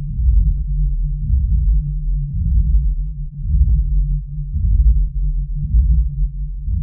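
Deep, wavering bass drone from a dark ambient soundtrack, with faint scattered clicks above it and no melody.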